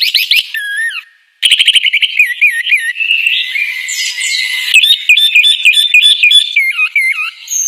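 Bird singing a fast series of whistled notes that swoop up and down, with a short break a little after a second in.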